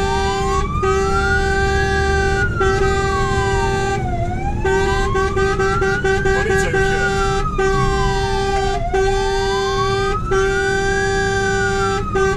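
Fire engine's siren in wail mode, heard from inside the cab: a slow rising-and-falling tone, about one full rise and fall every four and a half seconds. A steady lower tone with brief regular gaps and the truck's engine and road rumble run beneath it.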